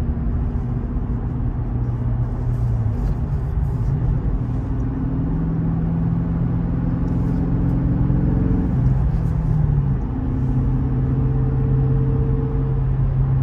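2022 Dodge Challenger's V8 engine and road noise heard from inside the cabin while driving, shifting through the six-speed manual. The engine note holds steady pitches that step with the gears, with a gear change about nine seconds in.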